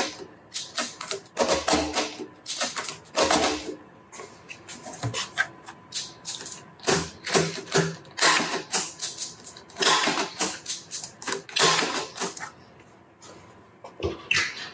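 Irregular sharp clicks and clacks, coming in clusters, from hands working a road bike's front derailleur and its cable during setup.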